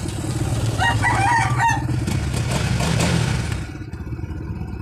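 Honda CBR150R's single-cylinder engine running, rising a little in the middle, then dropping away sharply near the end. A rooster crows about a second in.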